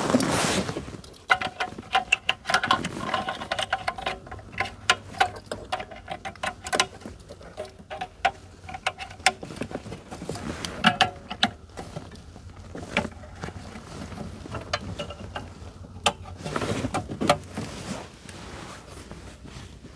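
Irregular sharp clicks, knocks and rattles of plastic wiring-harness connectors and a Ford Thunderbird front electronic module's metal case being handled and plugged in, with louder clusters now and then.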